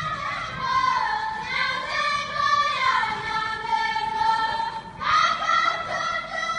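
Several high women's voices singing a Tibetan folk song together, holding long notes that slide from pitch to pitch, with a brief break just before the end.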